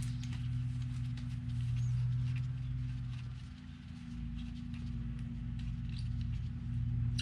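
Light clicks and ticks of small metal parts being handled as the starter's through-bolts are fitted by hand, over a steady low hum that dips briefly about halfway through.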